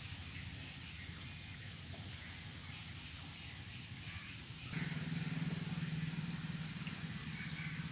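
Low rumbling outdoor background with faint bird chirps. A little past halfway a louder, steady low hum comes in and continues.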